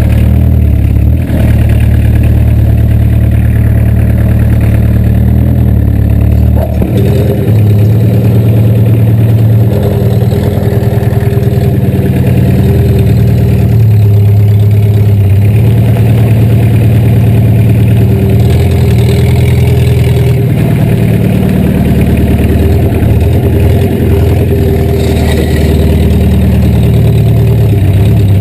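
VW Rabbit pickup's diesel engine heard close at the tailpipe, idling with its speed rising and falling several times as it is revved. Near the end the truck pulls away.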